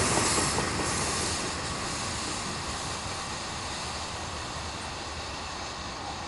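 Freight train's tank cars rolling away on the rails, the steady wheel-on-rail noise fading as the end of the train recedes.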